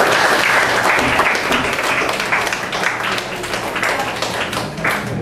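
A class of students applauding, many pairs of hands clapping together in a dense, steady patter.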